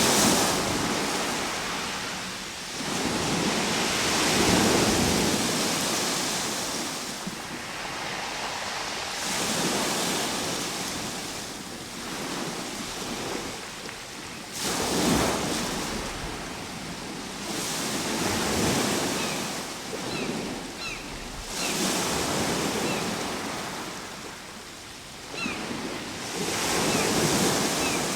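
Ocean waves breaking and washing ashore, surging in repeated swells every few seconds with a steady wash between. Faint short high chirps come in the second half.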